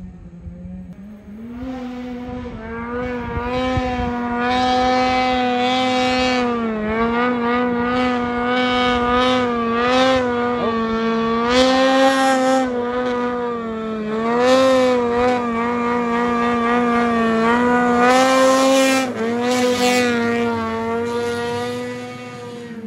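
Ski-Doo 600 RS race snowmobile's two-stroke engine running at high revs while water skipping across a river, its pitch held nearly level with small dips and rises as the throttle is worked. A hiss of water spray runs under it, and the engine eases off near the end.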